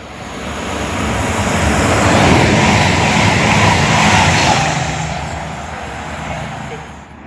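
A train passing. Its noise builds to a peak about two to four seconds in and then fades away, with a low engine drone underneath.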